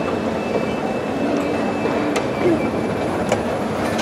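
Steady mechanical rumble of a moving escalator, with a few faint clicks, amid the background noise of a large hall.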